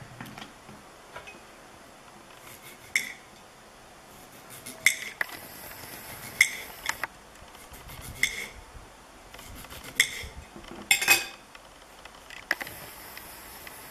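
A kitchen knife clinking against a ceramic plate while a tomato is sliced over it: about eight sharp, ringing clinks at irregular intervals.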